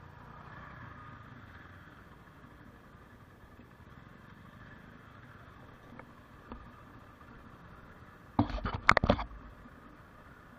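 Motorcycle running at low speed on a rough, stony dirt track, with a couple of light clicks and then a short burst of loud knocks and rattles about eight seconds in as it jolts over the stones.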